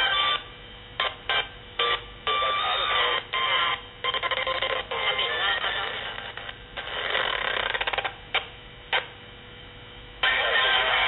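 Crystal radio heard through a small battery-powered amplifier's speaker while being tuned by sliding the contact along its coil: snatches of broadcast speech and music cut in and out as stations come and go.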